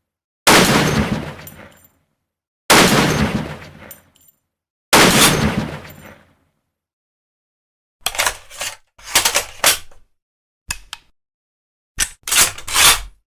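Three loud shots from a CheyTac M200 Intervention .408 bolt-action sniper rifle, about two seconds apart, each dying away in a long fading tail. After a pause come several groups of sharp metallic clicks and clacks of the rifle's action being worked.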